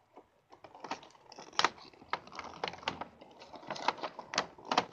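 A Hot Wheels 5-pack's packaging being opened by hand: irregular sharp clicks, snaps and crinkling of cardboard and plastic, coming thicker toward the end.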